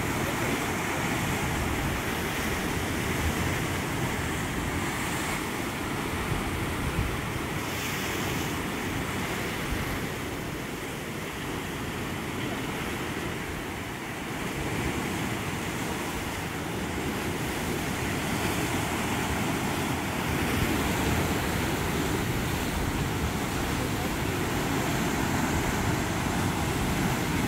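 Ocean surf breaking and washing against basalt column cliffs, a continuous rush of waves that eases a little around the middle and swells again.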